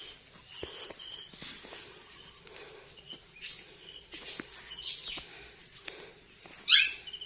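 Rural outdoor ambience: a steady high insect hum with short, repeated bird chirps. One louder, brief sweeping sound comes near the end.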